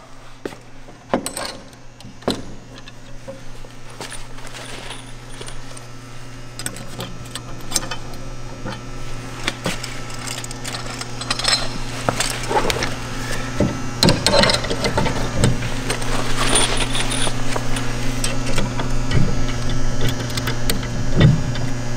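Steel concrete-forming hardware, snap tie extenders ("chicken feet") being fitted onto snap tie ends, clinking and clicking in irregular handling sounds that come more often in the second half, over a steady low hum.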